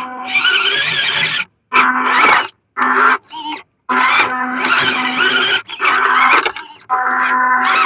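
Small brushed electric motor and plastic gearbox of a WPL C24 RC truck whining under throttle, a steady buzzing whine with a higher wavering gear whine over it. The sound is chopped into short runs by abrupt cuts to silence, three or four times.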